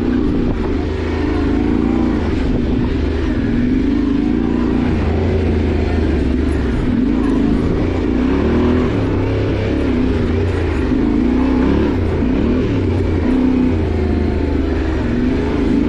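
Yamaha Ténéré 700's parallel-twin engine running under load off-road, its pitch rising and falling again and again as the throttle is opened and closed.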